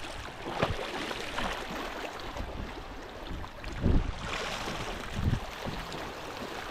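Sea water sloshing and wind, with a few dull low thumps about four and five seconds in.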